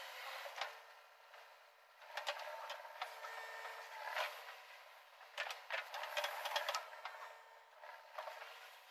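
JCB 3DX backhoe loader working: its diesel engine and hydraulics running with a steady whine as the backhoe arm lifts a bucket of soil. Scattered clanks and knocks from the bucket and linkage come in a cluster about five to seven seconds in.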